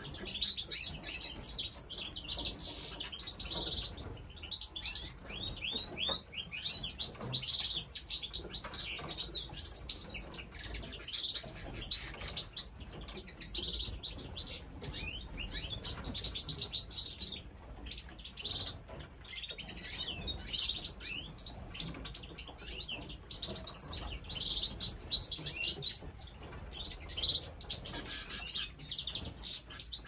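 A mixed flock of small aviary birds, canaries and budgerigars, chirping and twittering together in a dense, continuous chatter of high chirps.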